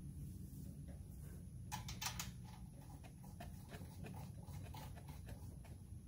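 Faint small metallic clicks and taps from a hand fitting extension studs onto a small-engine carburetor's mounting studs, with a short cluster of sharper clicks about two seconds in, over a low steady hum.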